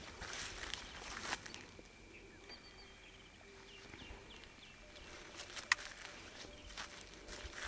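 Outdoor field ambience with scattered rustles and clicks, loudest near the start and in the last couple of seconds, plus one sharp click. A faint run of short high chirps sounds through the middle.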